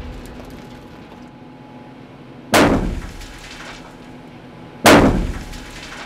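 Two homemade blasting charges detonating in an underground opal mine, about two seconds apart, each a sharp boom that dies away over about a second.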